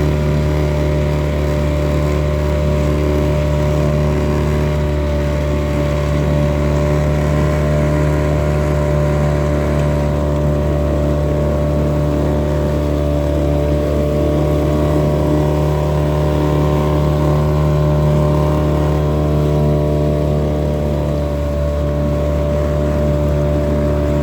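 Boat engine running steadily at a constant speed, a continuous hum.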